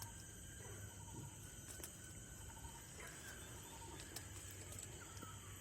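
Faint, steady chirring of insects, with a few small clicks.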